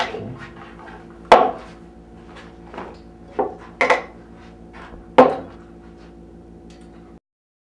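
A series of sharp knocks and clunks, like hard objects being handled and set down, over a steady low hum. The two loudest come about a second and a half in and about five seconds in, and the sound cuts off abruptly shortly before the end.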